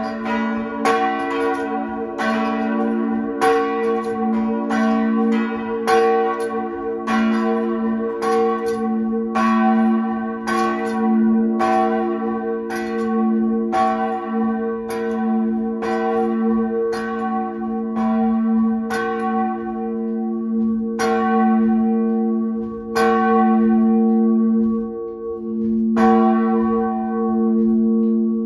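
Two swinging church bells striking in turn, heard close inside the wooden belfry: the small bell of 1867, tuned to B (h1), and the large bell of 1896, tuned to F-sharp (fiss1), both cast by Nils Petter Linderberg of Sundsvall. It is the two bells rung together as the call to service, the strikes coming about once a second over a long overlapping hum and thinning out over the last several seconds.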